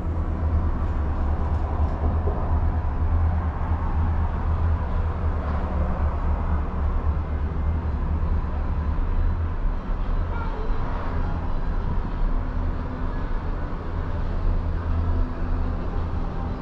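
Steady low rumble inside a moving Skyliner gondola cabin as it rides along its haul cable.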